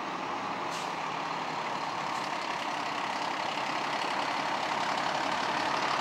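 Diesel fire engine rolling slowly past at close range, its engine running and growing steadily louder as it nears, with a short air-brake hiss about a second in.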